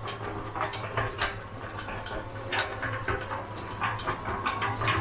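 Daewoo electric concrete mixer running: a steady low motor hum under irregular clacking and knocking, typical of the drum's gear ring and loose parts rattling as it turns.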